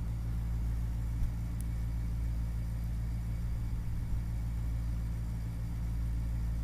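Steady low hum with a faint hiss underneath: the background noise of the voice-over microphone between sentences. There is a brief small click about a second in.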